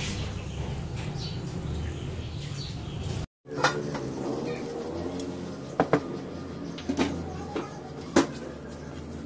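A pot of meat in broth boiling with a steady bubbling hiss. After an abrupt cut, an aluminium wok heats on the stove over a low steady hum, with several sharp pops and clicks, the loudest near the end.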